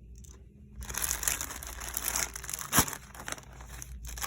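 Plastic packaging crinkling and crackling as it is handled and pulled open, with one sharp snap a little under three seconds in.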